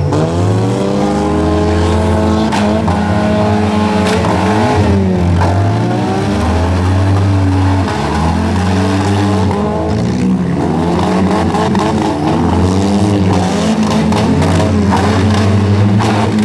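Several four-cylinder compact demolition derby cars' engines revving up and down over one another, with a few sharp bangs from cars hitting.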